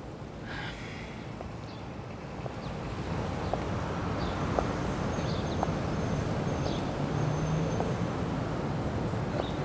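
Outdoor street ambience: a steady hum of traffic that grows louder about three seconds in, with a few faint bird chirps.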